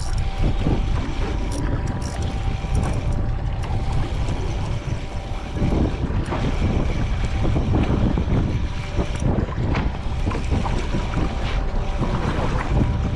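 Wind buffeting the microphone aboard an offshore charter fishing boat, over a low rumble and a faint steady hum.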